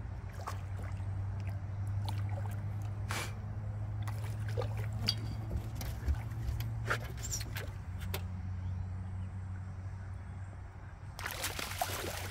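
A catfish splashing at the water's surface as it is pulled off a trotline and netted beside a boat, with small splashes and drips, then a burst of heavy thrashing splashes near the end. A steady low hum runs underneath.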